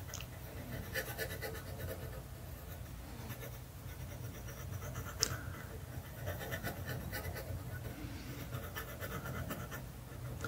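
Faint crackling and sizzling of flux and molten solder under a soldering iron as a metal plate is pre-tinned, with one sharp tick about five seconds in and a low hum underneath.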